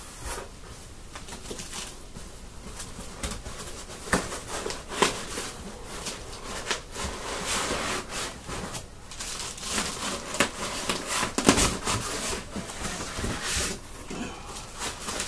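Packaging and accessories being handled during an unboxing: rustling with irregular clicks and knocks, a few sharper knocks along the way.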